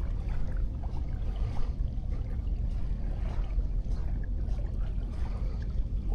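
Wind rumbling on an action camera's microphone, over a faint wash of sea waves on the beach.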